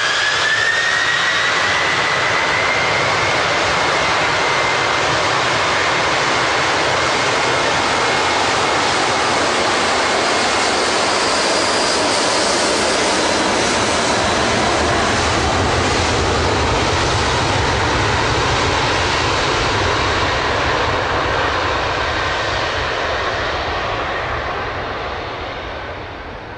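Boeing 747's jet engines at takeoff thrust, a loud steady rush with a whine that rises in pitch over the first couple of seconds and then holds. The noise fades over the last few seconds.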